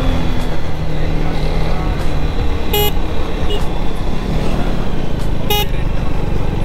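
KTM 250 Duke's single-cylinder engine running steadily on the move. About three seconds in, and again about five and a half seconds in, a vehicle horn gives a short toot.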